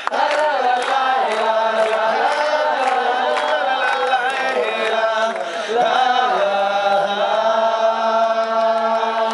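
Medieval-style folk song played live: bagpipes with a steady low drone under the melody, and a male lead voice singing with other voices joining in. Long held notes near the end.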